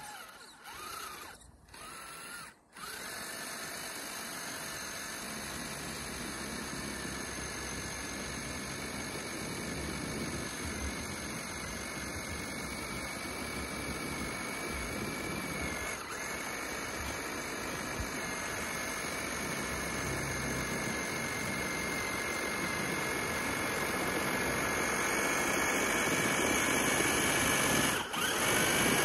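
Radio-controlled scale crawler's electric motor and gears whining steadily as it ploughs through deep snow, getting louder as it approaches. The motor cuts out briefly twice near the start and once near the end.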